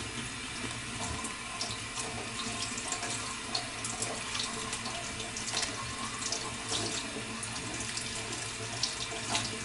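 Kitchen tap running steadily into a sink, with a few faint clicks and scrapes over the rush of water.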